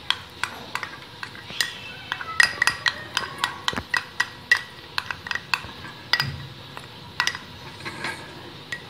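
Steel spoon clinking and scraping against a glass bowl and the rim and bottom of an aluminium pot as solid ghee is scooped from the bowl into the pot: many sharp, irregular clinks, some ringing briefly.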